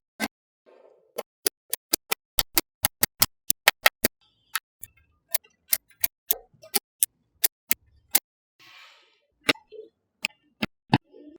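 Small magnetic balls clicking sharply as they snap onto one another. The clicks come in quick succession about one to four seconds in, then more spaced out.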